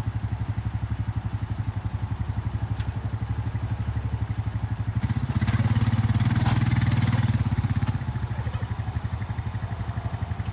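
Four-wheeler (ATV) engine running with a steady, fast pulsing beat. It grows louder for about three seconds in the middle, then settles back.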